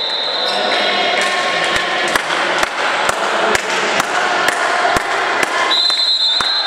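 Handball bouncing on the sports-hall floor, a thud about twice a second, echoing in the large hall, with sustained calls or tones above it.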